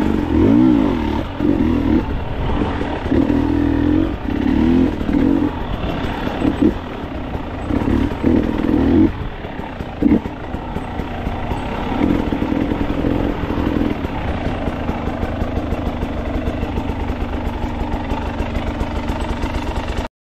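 Trail dirt bike engine heard on board, revving in short surges over the first nine seconds or so, then running steadily at low revs. The sound cuts off suddenly near the end.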